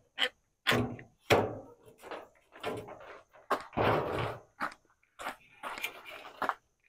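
A string of irregular knocks and clunks, about a dozen in a few seconds, each dying away quickly, like parts and tools being handled and set down in a workshop.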